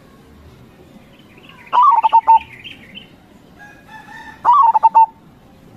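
Zebra dove (Javanese perkutut) singing two short, loud phrases about three seconds apart, each a quick run of staccato coos that steps down slightly in pitch. Faint chirps of small birds sound in the background.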